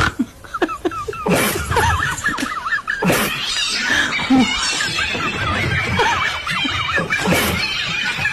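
Laughter with many quick high-pitched glides, over faint music, broken by short sharp noises about a second in, about three seconds in and near the end.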